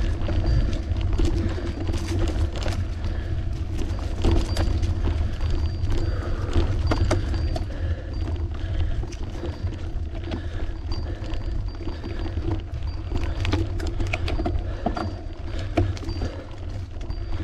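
Continuous low wind rumble on the microphone and road noise from a moving bicycle, with a steady hum and scattered small clicks and rattles.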